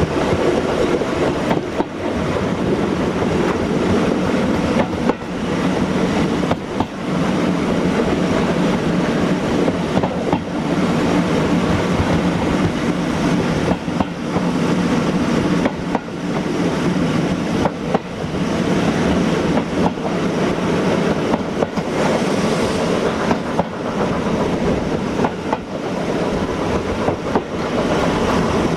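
Heritage train running steadily along the track, its wheels making a continuous rumble with a sharp click every second or two.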